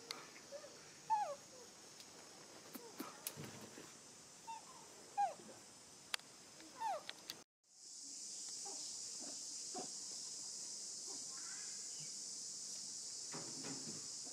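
A baby macaque gives short squeaks that fall in pitch, about eight of them with a few clicks among them. After a sudden cut, a steady high-pitched hiss carries on to the end.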